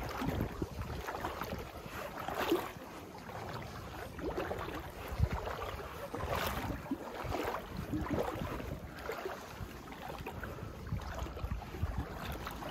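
Floodwater sloshing in irregular swishes, a few of them louder, over wind buffeting the microphone.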